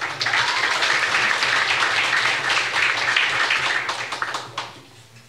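Audience applauding, a steady patter of many hands clapping that dies away about four and a half seconds in.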